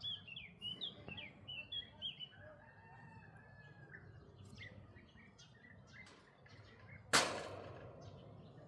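Birds chirping in quick, high sliding notes, loudest in the first couple of seconds and then fainter and more scattered. About seven seconds in comes a single sudden loud rustle or thump.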